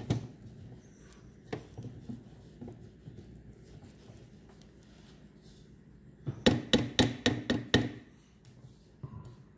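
Silicone spatula stirring thick, cooking play dough in a ceramic crock pot insert, with scattered knocks against the pot. About two-thirds in comes a quick run of several sharp knocks of the spatula against the crock.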